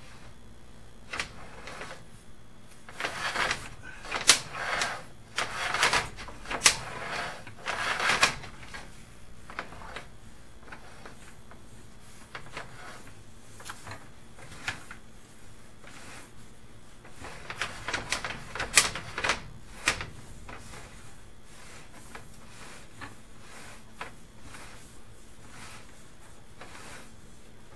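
Sewer inspection camera's push cable being pulled back out of the drain line: irregular clicking and rattling, busiest in two spells, one a few seconds in and one past the middle, with single clicks between.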